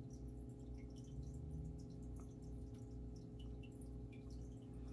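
Steady low background hum made of several even tones, with a few faint light ticks.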